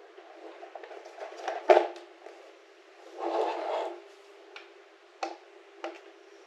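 Plug and cable handling at a Bluetti portable power station: a sharp click as a plug goes in, a short rustling scrape, then two small clicks. A faint steady hum sets in about two-thirds of the way through.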